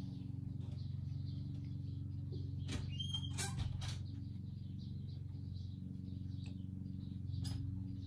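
Small birds chirping faintly and repeatedly over a steady low hum, with a few short clicks and a brief high chirp about three seconds in.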